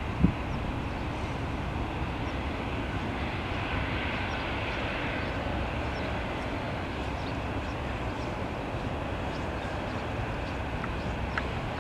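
Airbus A380's four jet engines at takeoff power during the takeoff roll, a steady, heavy rumble that swells slightly a few seconds in. There is a brief thump just after the start.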